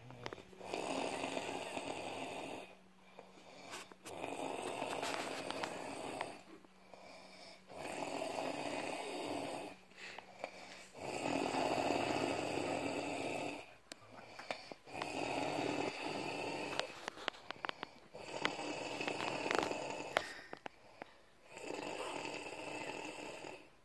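A man snoring: about seven long snores, one roughly every three and a half seconds, with short quieter gaps between them.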